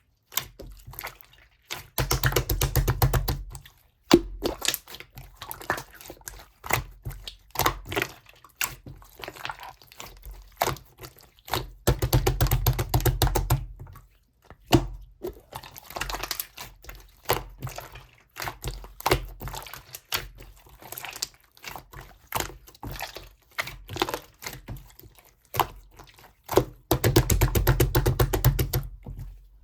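Slime being pressed and kneaded by hand, giving sticky clicks and pops, with three stretches of rapid crackling a couple of seconds each: early on, in the middle and near the end.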